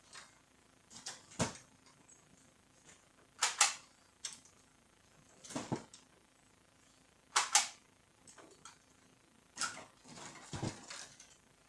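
Hard plastic clicks and knocks, about six in all and several of them doubled, as parts are pressed and snapped back into place in a Canon iR2016 copier.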